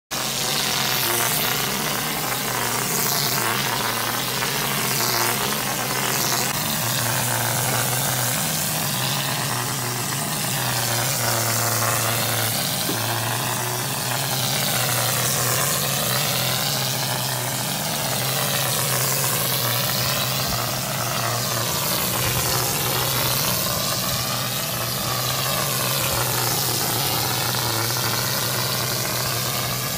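Monocouche mortar being sprayed onto a brick wall from the hose-fed spray gun of a Utiform Quattro mixing pump. A steady hiss of air and render, its tone slowly wavering, runs over the steady hum of the running machine.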